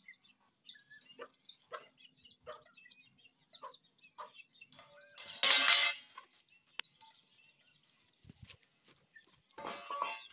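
Chickens in a coop calling, with short high chirps about twice a second. A metal bowl clatters loudly on hard ground about five seconds in, and clatters again near the end.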